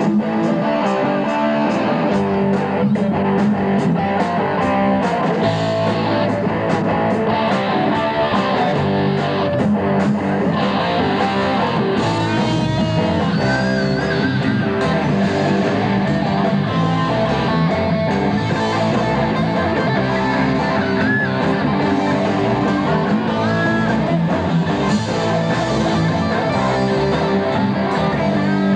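Rock band playing live: electric guitars and bass guitar over a drum kit, steady and loud throughout.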